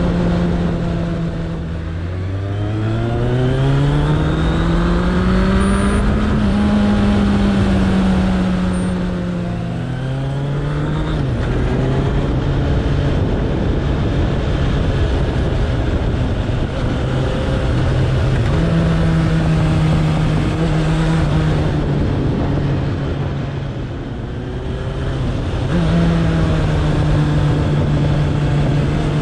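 Suzuki Bandit 1200's inline-four engine running under way. Its note drops briefly near the start, then climbs steadily for several seconds as the bike accelerates and eases off again. After that it pulls at a fairly even pitch with small rises and dips as the throttle changes.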